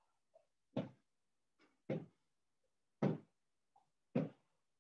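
Feet landing on a floor from squat jumps: four thuds about a second apart.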